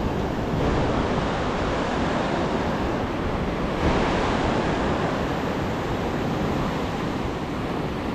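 Ocean surf breaking and washing up a sandy beach: a steady rush of white water that swells about four seconds in as a wave runs up the sand.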